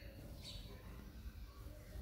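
A sparrow gives one short, faint chirp about half a second in, over a low steady background rumble.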